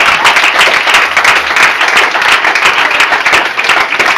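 Audience applauding and cheering, dense clapping from a full room at the end of a poetry performance.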